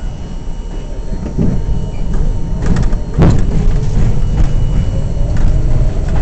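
R42 subway train running, a steady rumble of wheels on rail with scattered clicks and a sharp knock about three seconds in. A faint whine rises slowly in pitch through the second half.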